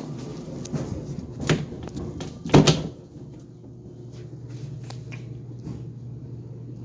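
GE Profile Harmony clothes dryer starting up and tumbling with a steady hum, with two loud bangs about one and a half and two and a half seconds in, the second the louder, and fainter knocks after. The banging is the noise the owner is investigating, cause unknown.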